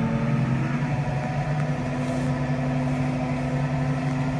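Tractor engine running steadily under load as the tractor drives through shallow floodwater on a road, its note rising slightly about two seconds in.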